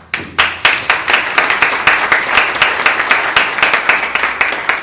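Audience applauding, starting suddenly with many sharp claps close together.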